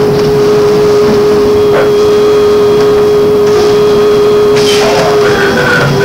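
Inside a MAN articulated trolleybus on the move: a steady, unchanging electrical whine over the running noise of the bus, with a couple of faint clicks.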